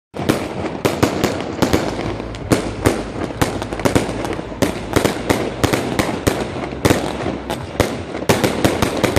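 Fireworks display: a dense, irregular run of loud bangs, several a second, over a continuous crackling rumble.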